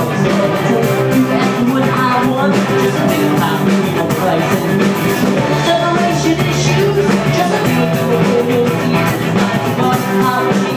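A live rock band playing full out, with distorted electric guitar, bass guitar and a drum kit with steady cymbal hits.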